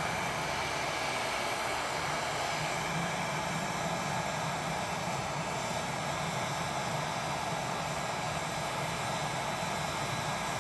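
Handheld electric blower, such as a hair dryer, running steadily and blowing warm air into a plastic gas tank to dry out water left inside it.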